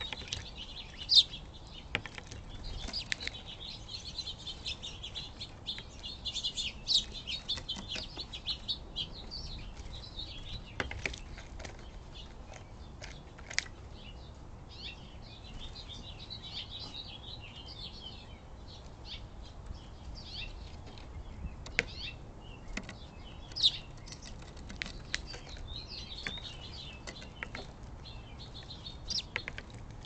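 An American robin splashing and fluttering its wings in a shallow bird bath, with scattered sharp splashes, over near-continuous high chirping and twittering of birds.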